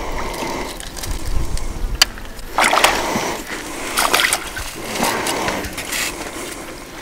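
A hooked fish splashing at the water's surface, then water splashing and pouring off a landing net as the fish is scooped up and lifted out. The splashes come in several short, irregular bursts.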